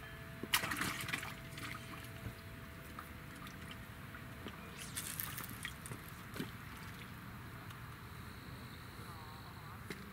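A short splash as a small striped bass is dropped into water about half a second in, followed by fainter water sounds and a brief second splash or rustle around five seconds.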